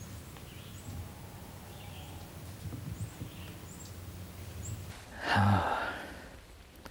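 Quiet woodland with small high bird chirps repeating about once a second. About five seconds in, a man gives one loud, breathy sigh-like sound lasting about a second.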